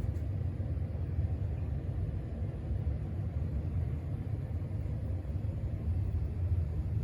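Casablanca Stealth ceiling fan running, heard as a steady low rumble of moving air with no clicks or changes.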